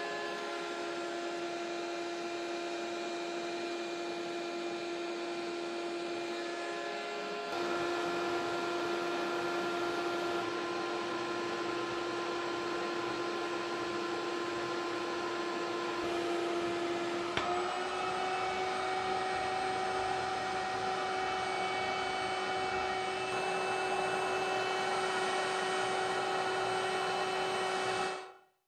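Shop-vac motor of a homemade mini cyclone dust collector running with the main dust collector, a steady high whine over rushing air. The whine steps slightly in pitch twice, then fades out near the end.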